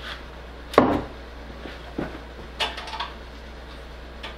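A few scattered knocks and clatters, the loudest a little under a second in, over a steady low hum.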